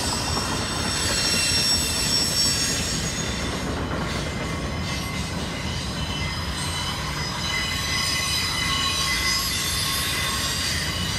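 BNSF intermodal freight train of trailers on flatcars rolling past steadily. Its wheels squeal with several high, steady tones over a low rumble.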